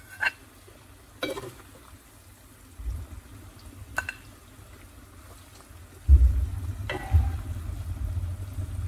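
A few light clicks of kitchen utensils in a quiet kitchen, about four, with a low rumble coming in about six seconds in.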